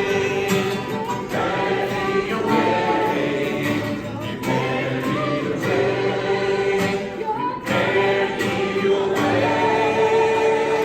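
A choir singing a gospel song with instrumental backing, voices holding long notes.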